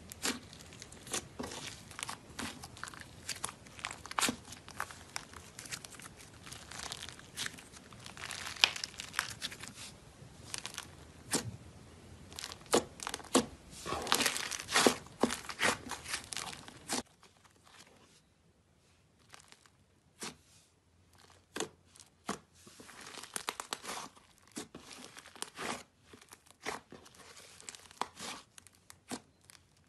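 Slime being kneaded and squeezed by hand: sticky squelches with many small pops and crackles. The crackles come thick and loud at first, then grow sparser and quieter about seventeen seconds in.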